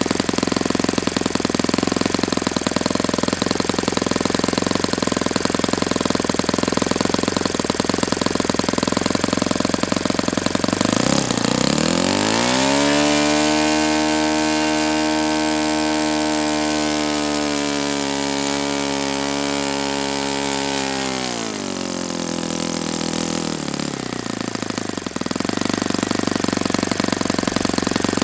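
Saito FA-72a single-cylinder four-stroke glow engine idling, then opened up about 11 seconds in to a steady high-rpm run. It is throttled back to idle about 21 seconds in.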